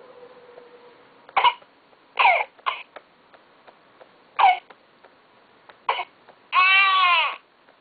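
Electronic infant-simulator baby playing a run of short recorded coughs a second or two apart, then one cry of under a second near the end.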